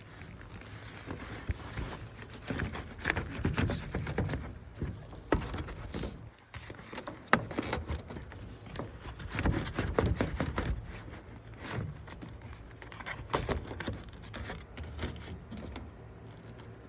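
A new furnace filter being handled and slid into the furnace's filter slot: irregular scraping and rustling with small knocks.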